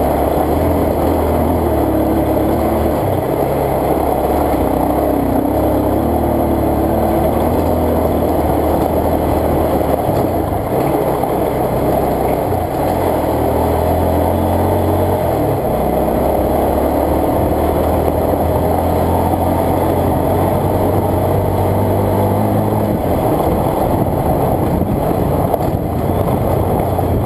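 Single-cylinder motorcycle engine running steadily while riding a rough dirt track, mixed with constant wind and road noise. The engine note changes about 23 seconds in.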